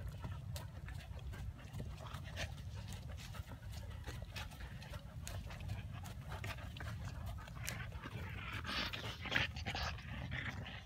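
Grey horse trotting on a dirt arena: rhythmic panting breaths with light clicks of hooves and tack, over a steady low rumble. Near the end a louder rush of breath as it comes to a halt.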